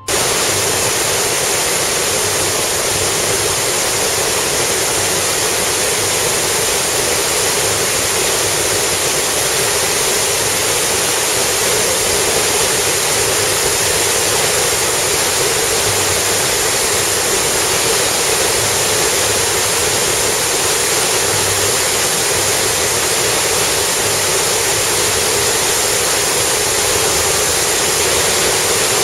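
Steady, loud rushing noise of a car driving on a wet road in rain, picked up by a dashcam's microphone: tyres hissing on the wet surface with rain, and a faint high whine throughout.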